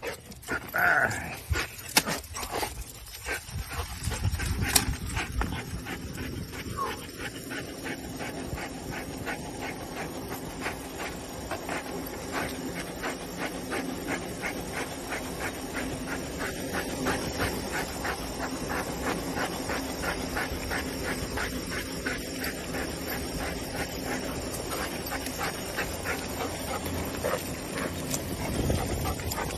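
A dog whimpering as it runs alongside a moving bicycle, tugging at the rider's trouser leg. Under it runs a steady hum from the ride that rises in pitch over the first several seconds.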